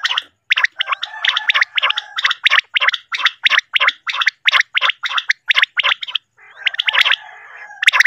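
Common quail (batair) calling: sharp notes repeated rapidly, about three to four a second, over a fainter continuous chattering, pausing briefly near the end. A recorded calling sound played to lure quail into nets.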